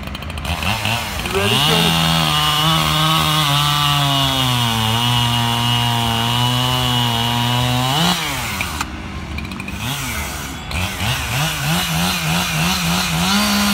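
Echo CS-7310P two-stroke chainsaw cutting through a squared timber beam. Its engine pitch sags under load, then jumps as the chain clears the wood about eight seconds in. After a brief lull the saw revs up and down and bites into the next cut near the end.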